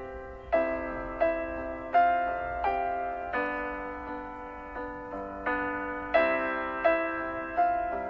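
Background music: a solo piano plays a slow, gentle melody of single struck notes over sustained chords, a new note about every half second to second.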